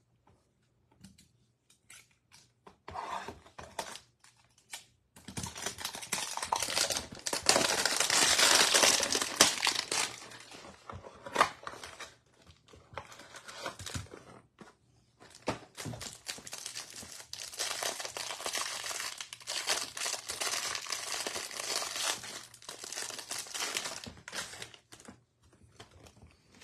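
Trading-card hanger box being torn open and its packaging crinkled as the card stack is pulled out: two long stretches of tearing and crinkling, from about five to eleven seconds in and again from about sixteen to twenty-four seconds, with lighter handling in between.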